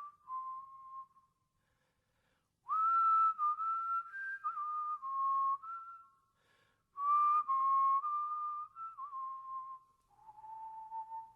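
A person whistling a slow melody in three phrases with short pauses between them, each phrase sliding up into its first note; the last phrase is softer.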